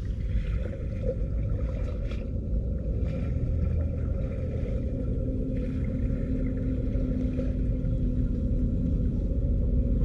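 Steady low rumble with a steady hum running through it, growing slightly louder toward the end.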